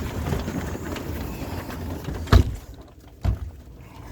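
Storm wind rumbling on the microphone, then a sharp knock about two seconds in and a softer knock a second later.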